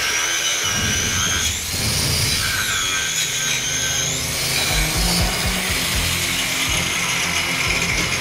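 Angle grinder with a thin cut-off disc cutting into a white plastic block held in a vise. Its high whine sags and recovers in pitch as the disc bites and eases off.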